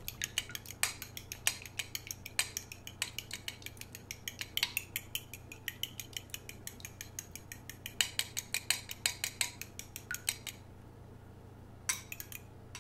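Eggs being beaten by hand in a bowl: a utensil clicking quickly and regularly against the bowl's side. The beating pauses about ten and a half seconds in, then a few more clicks come near the end.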